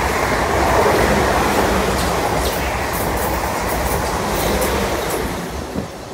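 South Western Railway Class 444 Desiro electric multiple unit running through a station: a loud steady rush of wheel and rail noise with sharp clicks as the wheels cross rail joints, falling away sharply near the end as the last coach goes by.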